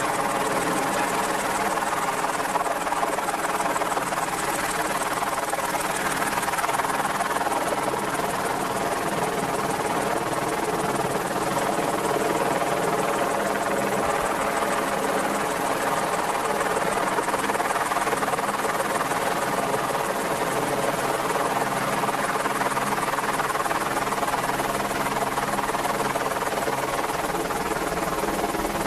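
Merlin helicopter running steadily, its rotor and turbine engines giving a constant drone with steady tones that does not rise, fall or break.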